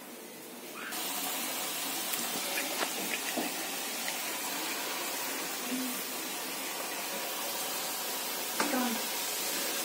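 Bottle gourd and rice-flour dough patty deep-frying in hot oil, a steady sizzle that starts about a second in.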